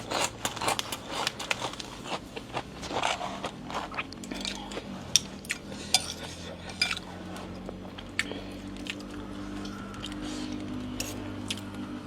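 Eating noodle soup: close-up chewing and the clink of a spoon and chopsticks against the bowl. There is a quick run of small clicks and bites at first, then a few sharp separate clinks over a steady low hum that comes in about four seconds in.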